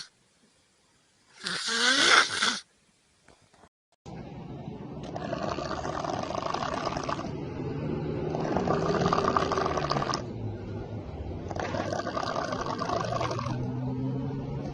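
A loud short sound about two seconds in, then after a brief silence a person snoring heavily, the rough breaths swelling and fading about every three seconds.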